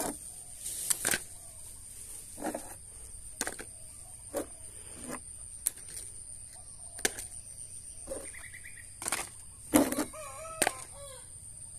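Mud-covered plastic toys being picked up and set down on a board: a string of short knocks and taps, roughly one a second. Near the end a chicken calls, over a steady high-pitched whine.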